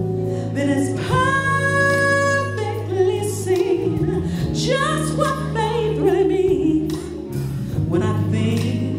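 A woman singing a slow song over music with a steady bass, holding one long note about a second in.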